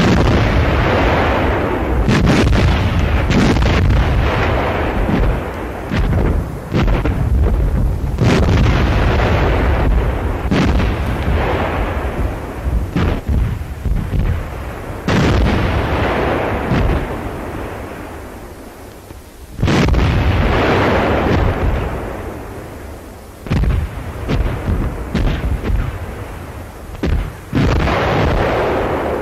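Heavy artillery fire: a long series of cannon shots and shell bursts, each a sudden blast trailing off into a rumble. The spacing is uneven, sometimes several a few seconds apart, and there is a short lull past the middle. The sound has the dull, hissy quality of an old newsreel optical soundtrack.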